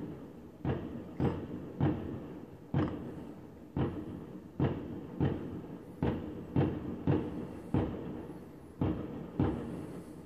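Aerial fireworks bursting: an irregular series of booming bangs, more than one a second, each trailing off in an echo.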